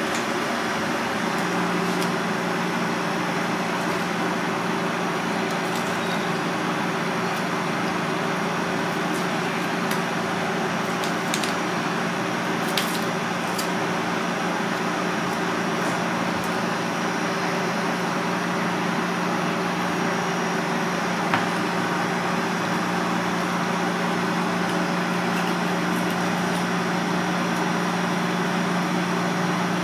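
Steady machine hum with an even rushing noise, like a ventilation fan running, and a few faint clicks about a third of the way in and again about two-thirds in.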